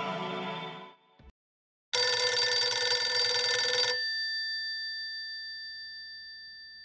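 Music fading out, then about two seconds in a telephone bell rings for two seconds, its tones ringing on and slowly dying away afterwards.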